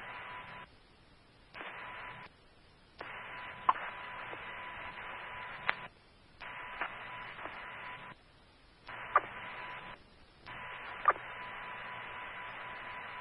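Fire-department two-way radio channel carrying about six short open-mic transmissions with no voice: each is a block of static hiss with a steady tone, switching on and off with a click. Firefighters are keying their radio mics for an electronic roll call.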